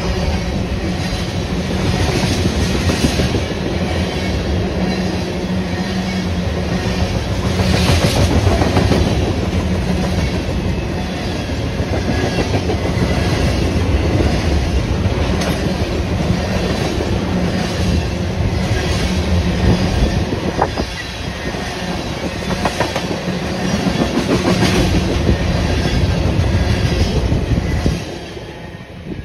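A freight train of loaded tank cars rolling past close by: a steady rumble of steel wheels on rail with repeated clickety-clack of wheels over rail joints. The sound drops away sharply near the end as the last car passes.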